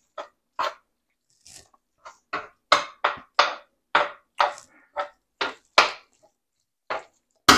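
Metal slotted spoon scraping and stirring a thick ground beef and chili mixture in a stainless steel skillet, in short strokes about two a second with a brief pause, then a louder metal clank near the end.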